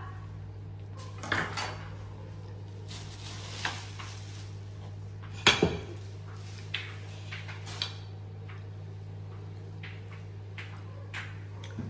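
Scattered clinks and scrapes of a metal knife and fork on a ceramic plate, the loudest about five and a half seconds in, over a steady low hum.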